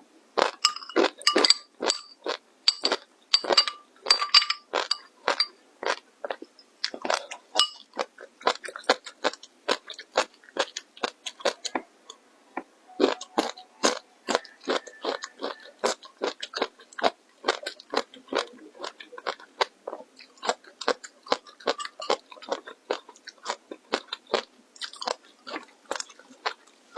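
Close-miked crunching and chewing of crisp food: a fast run of sharp, brittle crunches, busiest in the first several seconds.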